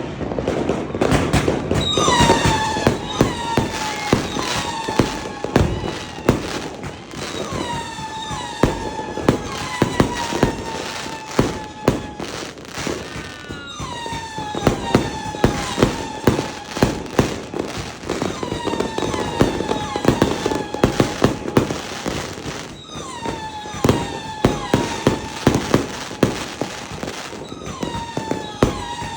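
A 100-shot fireworks cake firing in quick succession: a steady string of pops and bangs, with many shots trailing a short whistle that dips slightly in pitch. The shots come in waves, thickening every few seconds.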